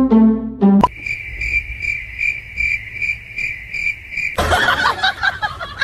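Cricket chirping: a high, steady trill pulsing about three times a second that starts and stops abruptly, after a short run of low pitched musical notes at the start. Near the end it gives way to a noisy stretch like a person chuckling.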